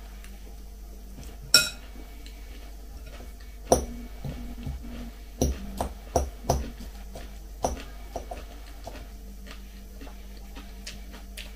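Small metal fork clinking against a glass salad bowl as leafy salad is picked up and eaten, a string of separate sharp clinks, the loudest about a second and a half in and several close together around the middle.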